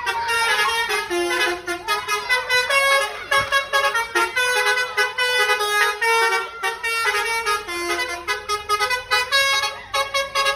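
Bus telolet basuri horn, a multi-tone musical horn, playing a continuous melody of held notes that step from pitch to pitch and slide between notes in places.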